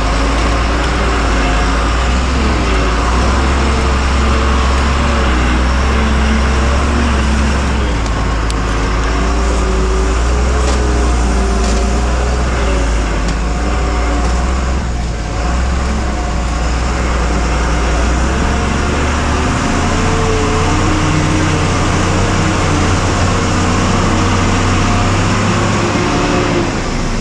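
Diesel engine of a truck loaded with stone, running steadily under load on a rough road; its engine note steps up to a higher pitch about twenty seconds in.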